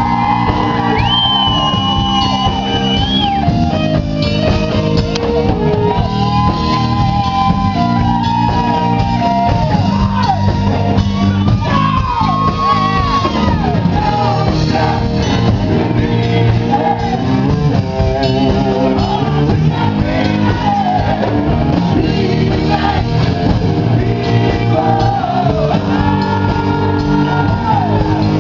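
Live rock band playing loudly: drum kit and amplified guitar under a male singer shouting and singing into a microphone.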